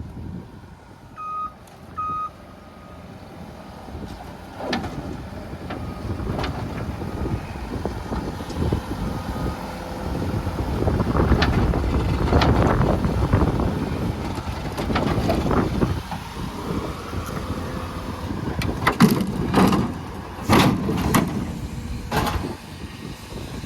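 Skid steer loader being worked: two short backup-alarm beeps about a second apart near the start, then the engine running and revving up under load, with sharp metallic clanks, several of them close together near the end.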